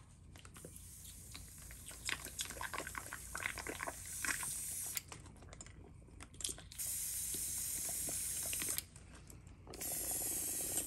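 Airbrush being cleaned out: a few seconds of small clicks and rattles of handling, then two bursts of steady spray hiss, about two seconds and about one second long, as cleaner is blown through the gun.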